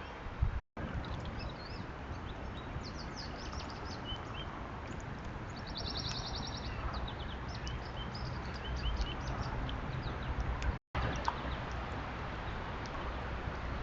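Lakeside birds calling: many short high chirps and whistles, with a rapid buzzy trill about halfway through, over a steady low rumble. The sound drops out briefly twice, near the start and near the end.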